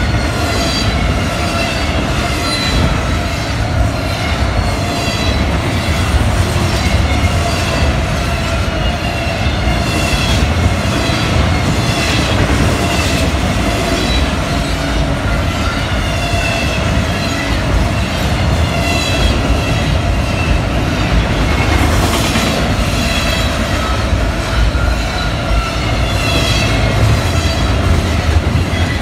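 Double-stack intermodal well cars rolling past at speed: a steady loud rumble of steel wheels on rail, with many short, high wheel squeals and occasional knocks from the wheels over the rail.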